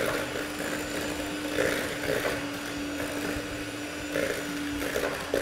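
Electric hand mixer running at a steady speed, its beaters whipping a thick cake batter in a glass bowl, with a steady motor hum.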